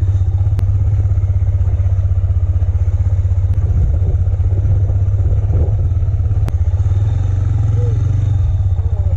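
Sport quad (ATV) engine running at steady low revs while being ridden, heard close from the rider's seat, a deep rapid exhaust pulse that holds even throughout.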